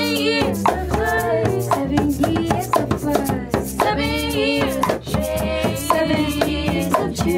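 Women's voices singing together in harmony, over a steady shaker rattle, cajon strokes and a low upright bass line.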